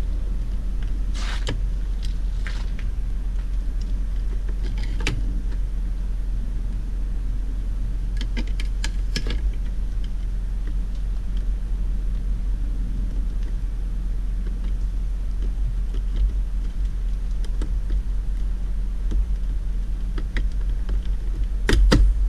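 Plastic door-trim cover on a Hyundai Sonata door being handled and pressed into place: scattered sharp plastic clicks, a quick cluster of them in the middle, and a couple of louder knocks near the end as it is tapped in. A steady low rumble runs underneath.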